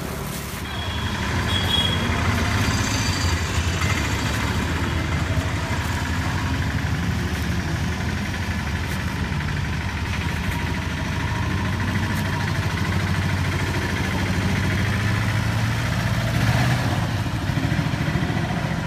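A vehicle engine running steadily at idle, a continuous low drone with an even pulse.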